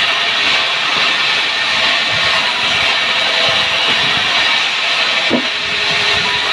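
Powered wood saw running, a loud steady mechanical noise without a clear pitch.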